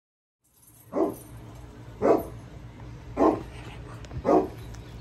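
A dog barking four times, about once a second, over a low steady hum.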